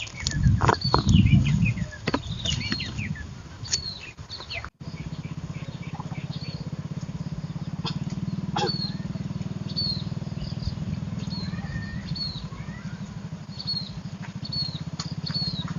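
Small birds chirping over and over, short high calls repeated every second or so, over a steady low hum like a distant motor. A few sharp clicks come in the first half, and there is a louder low rumble in the first couple of seconds.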